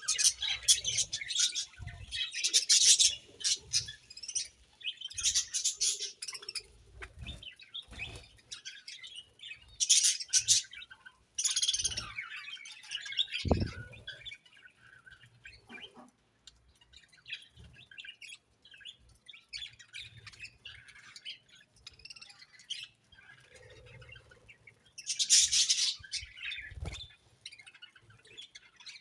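Budgerigars in a colony chirping and warbling, many short, high calls overlapping, in louder bursts separated by quieter stretches.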